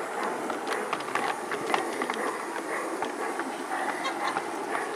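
G gauge garden railway train rolling along its track, heard from a wagon it is pulling: a steady rattling wheel noise with frequent irregular clicks.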